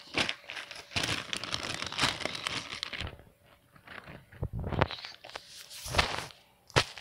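Clear plastic zip-top bag crinkling and rustling as it is handled, with a short lull about three seconds in. A few dull knocks come in the second half.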